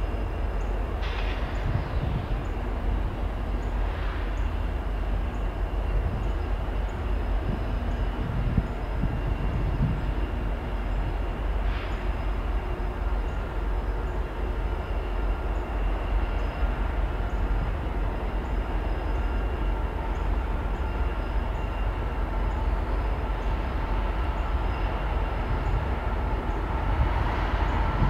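Norfolk Southern double-stack container train approaching, its diesel locomotives running with a steady low rumble that grows a little louder near the end as they draw closer.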